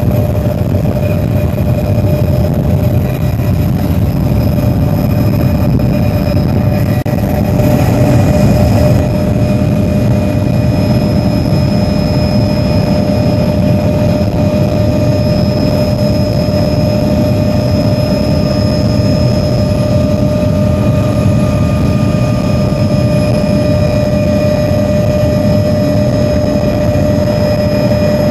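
Helicopter engine and rotor noise heard from inside the cabin in flight: a steady, loud rumble with a steady whine on top.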